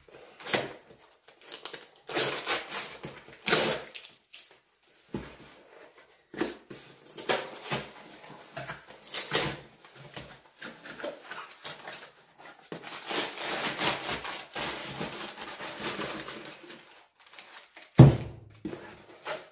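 Crumpled brown kraft packing paper rustling and crinkling in irregular bursts as it is pulled out of a cardboard shipping box. A single thud near the end.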